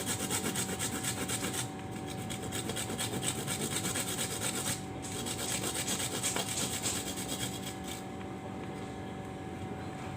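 Kencur (aromatic ginger) rhizome being rubbed back and forth on a hand grater in quick, regular strokes, with a brief pause about five seconds in; the grating stops about eight seconds in.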